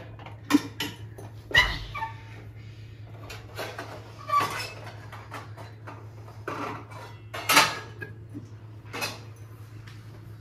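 Scattered clinks and taps of a small metal paan box and its lids and containers being opened and handled, with the loudest knock a little past the middle, over a faint low steady hum.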